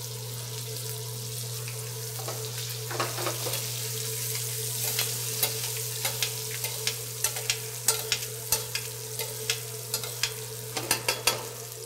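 Grouper fillets searing in hot butter and oil in a stainless steel skillet, sizzling steadily, while a metal spoon bastes the fish with frequent sharp clicks and pops, thickest in the second half. A steady low hum runs underneath.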